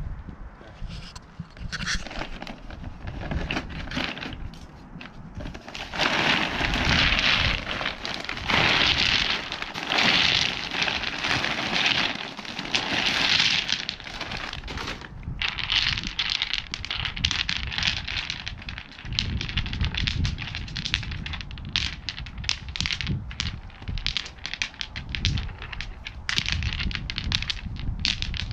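Mexican beach pebbles clattering as they are poured from a bag onto weed barrier, in four long pours, then many short clicks of stone knocking on stone as they are set in place by hand.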